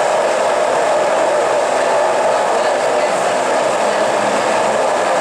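An electric kitchen appliance motor running with a loud, steady whir.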